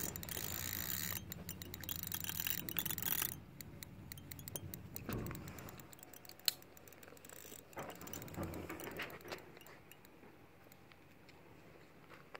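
Daiwa Windcast spinning reel clicking and ticking while a large fish is played on the rod. The rapid clicks are densest for about the first three seconds, then thin out to scattered ticks.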